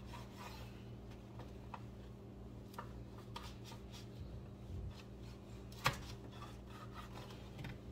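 Knife cutting through crusty baguettes on a wooden cutting board: faint crackles of crust and scattered light taps, with one sharper knock of the blade on the board about six seconds in.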